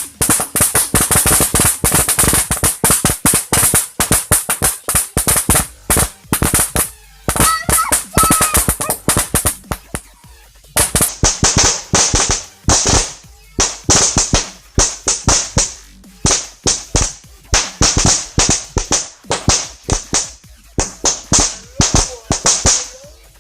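Rapid, irregular strings of sharp pops from roll caps going off in quick succession, several a second, with a brief lull about ten seconds in before the popping resumes.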